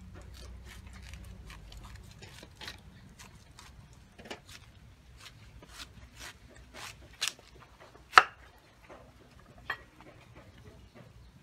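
A cleaver slicing through a raw banana flower onto a wooden chopping board: a run of short, crisp cutting strokes at roughly two a second, with one much sharper knock about eight seconds in. The strokes stop near the end.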